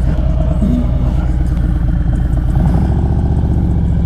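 Harley-Davidson Road Glide's V-twin engine running steadily while the motorcycle is ridden.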